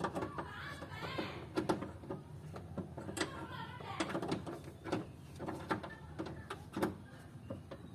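Wrench tightening a door handle's bolts inside a car door: irregular metallic clicks and knocks.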